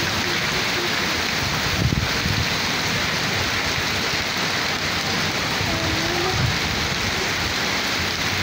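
Steady monsoon rain pattering on a concrete courtyard and potted plants, an even, unbroken hiss.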